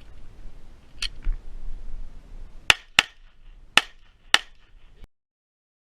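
Four sharp pistol shots in an uneven string, two close together and then two more spaced out, after a couple of fainter cracks; the sound then cuts off abruptly.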